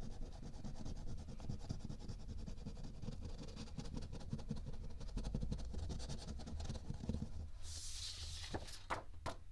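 A scratch-off circle on a paper savings-challenge sheet being scratched off, a steady rapid scratching. About seven and a half seconds in it changes to a brighter brushing swish as the paper is swept and moved, followed by a few sharp light taps.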